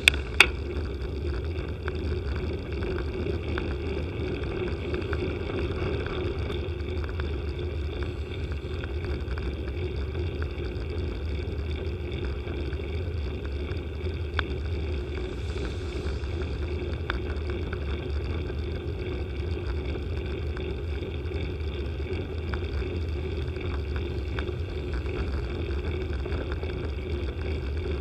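Steady wind and road rumble on a bicycle-mounted camera's microphone while riding, with two sharp clicks right at the start.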